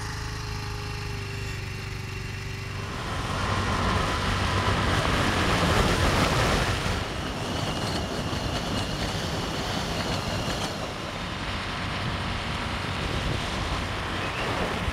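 Motor scooter riding along a road: a steady engine hum under rushing wind noise, which grows louder about three seconds in.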